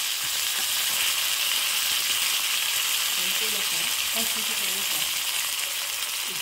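Curry leaves, dried red chillies and mustard seeds sizzling steadily in hot ghee in a small pan: a South Indian tempering frying on the stove.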